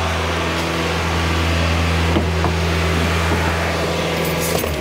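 Kia car engine running at a steady, raised speed of about 2,500 RPM, its hum unchanging, while the flush's rinse oil circulates through the engine. The sound cuts off abruptly near the end.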